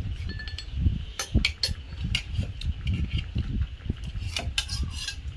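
Kitchenware being handled while cooking: sharp clinks and taps in clusters, about a second in and again near the end, over a low rumble.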